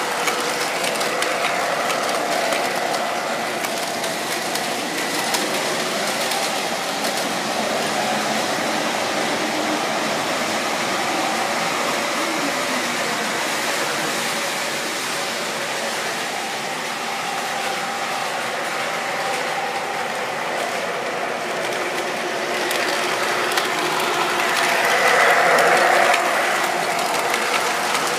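MTH R142A O-gauge model subway train running on its track: a steady mechanical rattle of wheels on rail with a faint motor whine, louder for a moment near the end as the cars pass close by.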